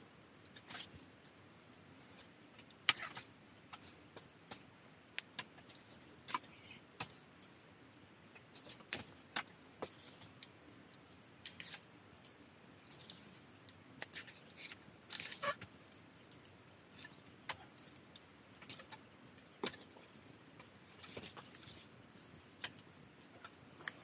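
Split firewood burning in an open fire, crackling with irregular sharp pops and snaps, a few a second over a faint hiss, with a couple of louder pops.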